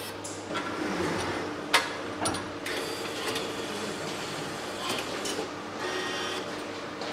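A machine running with a steady hum, broken by a few sharp clicks and knocks.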